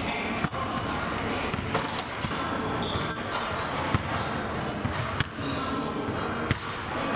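Basketballs bouncing on a gym's hardwood floor: irregular sharp thumps over a constant background din in the hall.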